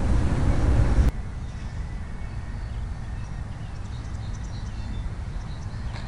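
Wind buffeting a small keychain camera's microphone as a loud low rumble. It cuts off abruptly about a second in, leaving a quieter steady outdoor background.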